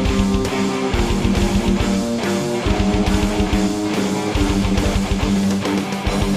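Instrumental rock improvisation: a guitar playing held, changing chords over a drum kit keeping a steady beat.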